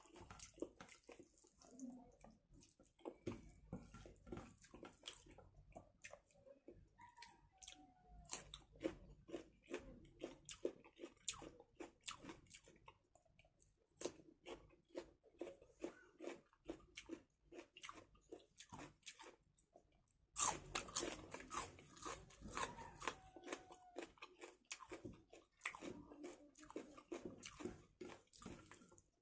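A person eating close to the microphone: chewing and crunching, with many short wet clicks of the mouth, growing louder and busier about two-thirds of the way through.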